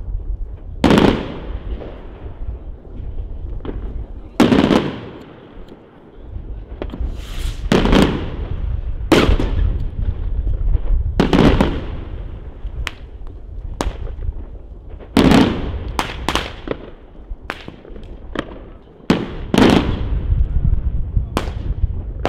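Professional aerial fireworks bursting: about nine loud bangs at irregular intervals, each trailing off in an echo, with smaller pops between them.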